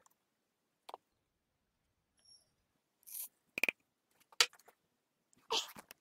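A handful of short, separate clicks and taps of a thin plastic cup being set down and handled on a small digital pocket scale, with quiet gaps between them; the loudest comes a little past the middle.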